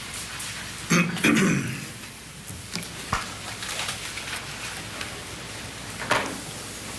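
Courtroom room tone with a steady hiss, broken by a person clearing their throat about a second in, then a few short clicks and papers being handled.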